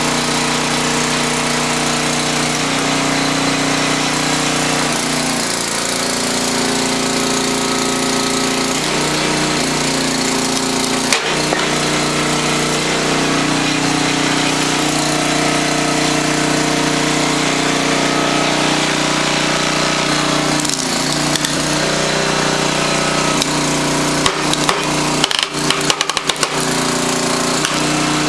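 10 HP Briggs and Stratton engine running a hydraulic log splitter, its note shifting in pitch several times as the splitter works. A sharp knock about eleven seconds in and a quick cluster of knocks near the end.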